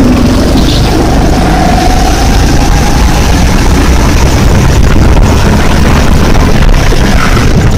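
Go-kart engine running under hard acceleration out of a corner, its pitch climbing in the first couple of seconds, heard through a helmet-mounted phone's microphone under a heavy, constant rumble.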